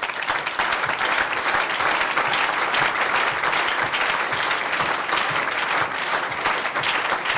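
Large audience applauding, a dense steady clapping that holds throughout.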